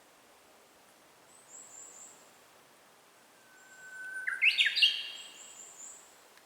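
Japanese bush warbler (uguisu) singing its "hō-hokekyo" song once: a long steady whistled note about three seconds in, then a quick rising flourish of sharper notes. Faint, thin high chirps come from another small bird before and after the song.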